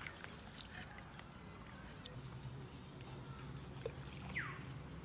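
Faint outdoor background: a low steady hum sets in about two seconds in, with a small tick and then a single short falling whistle near the end.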